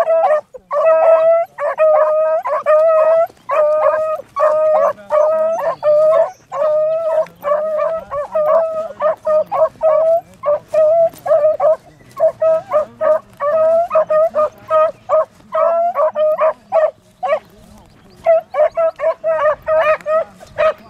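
Beagle hound baying on a trail: a steady run of short, evenly spaced cries, about two a second, with a brief pause near the end.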